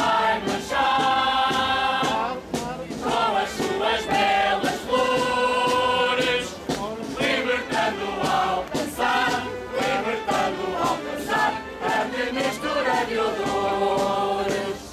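Marcha popular song: a chorus singing together in long held notes over band music with a steady beat.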